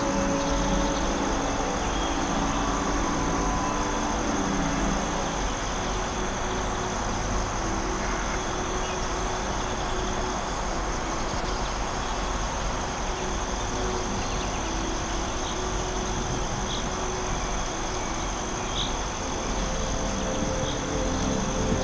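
Steady forest ambience: a constant high drone of insects such as crickets over an even hiss and low rumble, with a few faint high chirps in the second half. Soft held low tones, like an ambient music pad, fade out after a few seconds and come back near the end.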